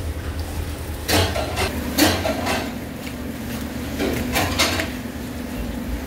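Kitchen clatter: sharp knocks and clinks of dishes and utensils, a cluster starting about a second in and a few more near four seconds, over a steady low hum.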